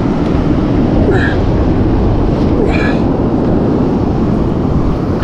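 Strong wind buffeting the microphone in a steady low rumble, with surf washing on the beach behind.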